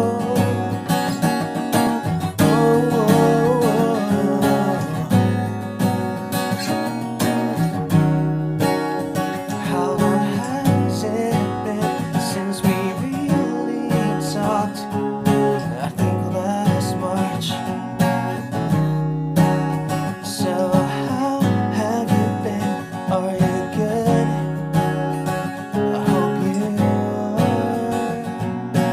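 Acoustic guitar being strummed, with a man singing along.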